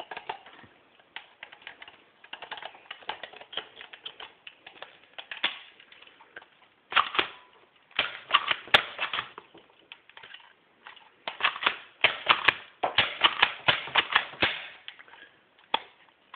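Quick, irregular plastic clicks and clacks in bursts from an Air Zone Quick Fire 12 toy dart blaster being worked to empty darts from one of its barrels.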